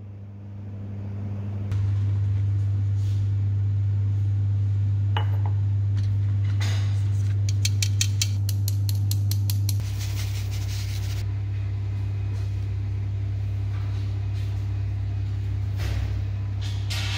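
A metal flour sieve being shaken and tapped over a plastic mixing bowl as flour is sifted, giving a quick rattling of about five taps a second for a couple of seconds midway, then a brief hiss. A steady low hum runs underneath throughout.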